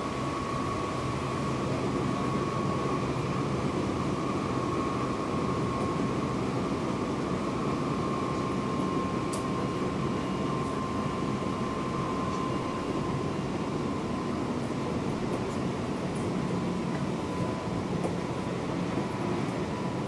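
Seibu 6000 series electric train running at speed, heard from inside a motor car: a steady rumble of wheels on rail with a thin whine that sinks slightly in pitch. A single sharp click about nine seconds in.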